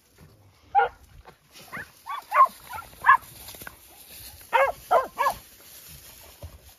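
Podenco barking in short, sharp yelps while hunting through the scrub: about nine of them in uneven bunches, one near the start, a quick run around two to three seconds in, and three more about four and a half seconds in.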